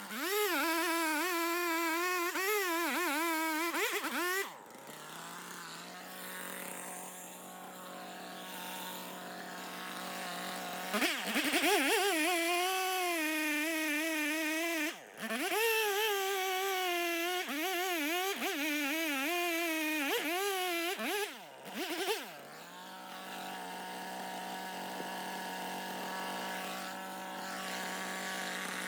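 Stihl MS 391 two-stroke chainsaw cutting firewood rounds, its engine pitch dipping and recovering as the chain bogs and frees in the wood. It drops back to a quieter steady running sound at about four seconds and at about 21 seconds, with a second long cut in between.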